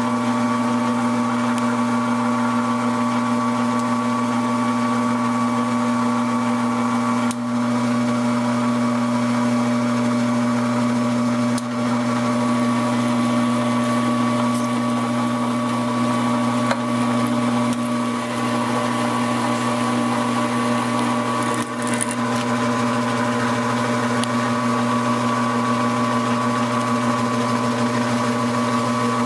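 Metal lathe running steadily, its motor and gears humming, while a single-point threading tool cuts 12-threads-per-inch threads into a rifle barrel blank. The sound dips briefly a few times.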